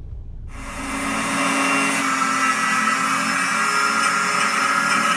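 Electric angle grinder running against steel, a steady loud whine with grinding noise, starting about half a second in.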